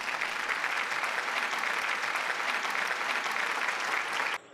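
Applause: many hands clapping in a dense, steady patter that cuts off suddenly near the end.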